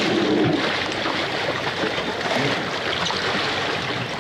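Water rushing and splashing along the hull of a moving boat, a steady wash with wind on the microphone.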